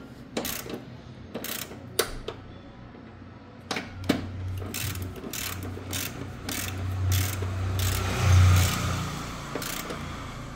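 Hand tools working on a Fiat Fire 1.0 engine: a ratchet wrench clicking and metal tools knocking as bolts are fitted and tightened. A steady low hum with hiss builds through the second half and is loudest shortly before the end.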